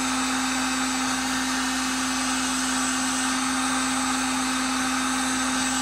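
Electric heat gun running on a steady setting, a constant fan whir and rush of hot air with a steady hum, as it heats a heat-shrink solder connector on a battery wire.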